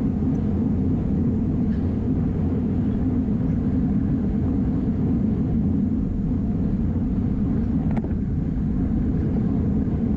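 Steady wind rush buffeting a bike-mounted action camera's microphone as the rider holds race speed of about 25 mph, with a single faint click about eight seconds in.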